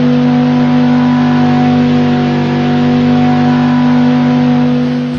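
Recorded V10 engine sound held at a constant pitch, a steady hum of stacked tones with no revving up or down, fading out just after the end.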